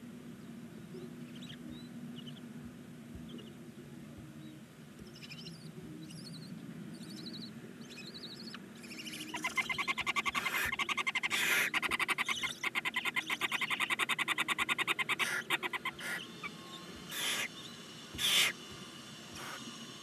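Barn owls in a nest box calling: faint cheeps at first, then from about nine seconds a loud, fast rattling chatter of calls lasting about seven seconds, followed by two short harsh hisses near the end.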